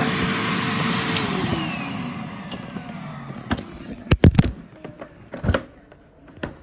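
Numatic Henry vacuum cleaner's motor running with a steady whine, switched off about a second in and winding down, its pitch falling and the air rush fading over a couple of seconds. A few sharp knocks follow.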